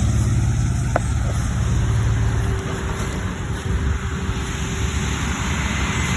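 A vehicle engine running steadily with dense mechanical and rushing noise. There is a short tick about a second in, and the low hum eases a little partway through.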